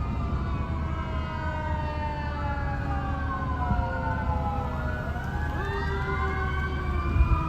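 Fire apparatus sirens wailing, several at once and overlapping. Their pitches slide down together, then one winds back up about five seconds in, over a low rumble.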